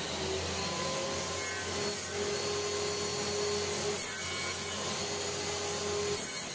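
Homemade table saw running, its spinning blade cutting a wooden workpiece pushed along the fence: a steady whirring hum with sawing noise. A faint steady tone joins about two seconds in and drops away near the end.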